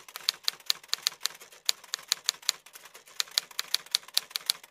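Typewriter sound effect: a quick, uneven run of key clacks, about five a second.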